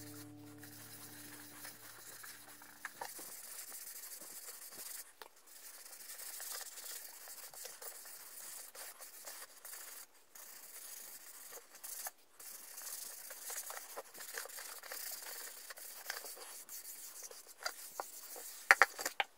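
Cloth rag rubbing a wet finish over the outside of a segmented wooden bowl: a faint, irregular rustling scrape. Music fades out in the first few seconds, and a few sharp knocks come near the end.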